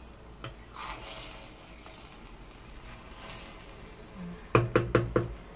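Wooden spoon stirring cooked rice in a stainless steel pot, with faint scraping, then about five quick, sharp knocks of the spoon against the pot a little after four and a half seconds in.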